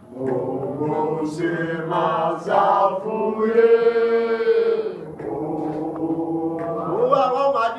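A man singing a gospel worship song, holding one long note about halfway through.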